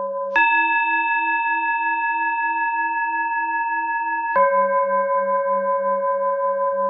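Tibetan singing bowls ringing. A higher-pitched bowl is struck about a third of a second in and rings steadily for about four seconds, the cue to breathe in. A lower bowl is then struck and rings with a slow pulsing wobble, the cue to breathe out; each strike cuts the previous tone off abruptly.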